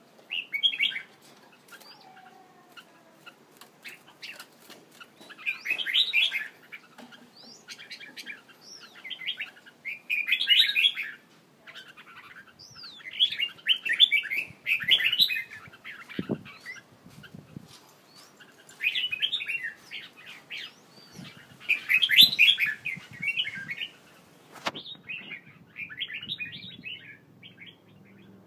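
Caged songbirds singing in short, quick twittering phrases, one burst every few seconds, with a single sharp tick near the end.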